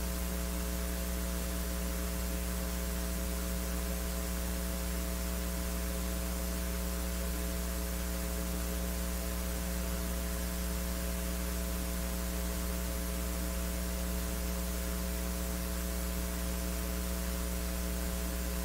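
Steady electrical mains hum, a low buzz with a stack of higher tones, over constant hiss, unchanging throughout.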